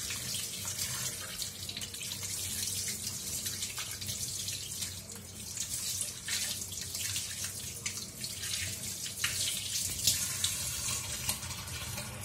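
Tap water running into a stainless steel kitchen sink, splashing irregularly as a whole croaker fish is rinsed and rubbed clean by hand under the stream.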